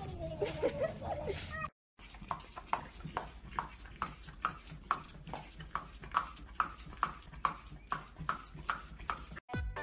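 A dog making the same odd short sound over and over, a little more than twice a second. It is preceded by a brief cat meow at the very start.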